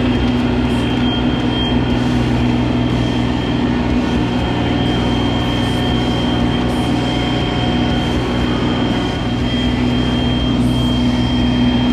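Mahindra eMax 20S sub-compact tractor's diesel engine running steadily at a constant speed, with a thin high whine over it.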